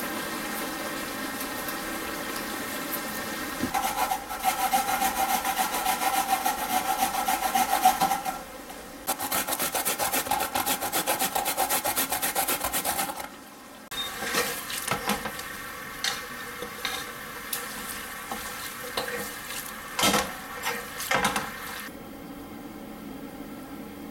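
Daikon radish being grated on a grater box: fast, rhythmic rasping strokes in two long runs, then scattered light clicks and taps.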